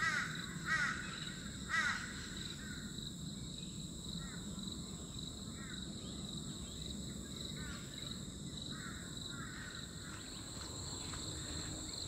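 Torresian crow calling: three loud harsh calls in the first two seconds, then fainter calls. A steady high-pitched insect drone sounds throughout.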